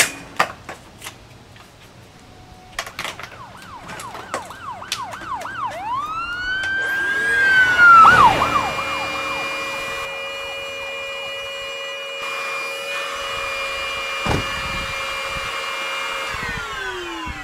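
Dyson DC05 vacuum cleaner motor winding up with a rising whine, running with a steady high whine, then winding down in falling pitch near the end. Before it, a wavering, siren-like whistle rises and falls several times.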